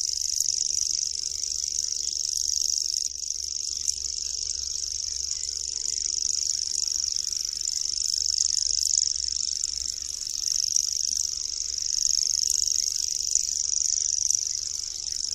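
Common grasshopper warbler singing its reeling song: one unbroken, high-pitched, insect-like trill that runs on steadily, briefly a little fainter about three seconds in.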